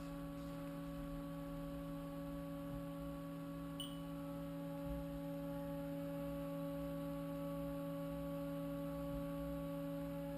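Steady electrical hum of a powered-up Haas CNC vertical mill standing by, made of several fixed tones, with a faint tick about four seconds in.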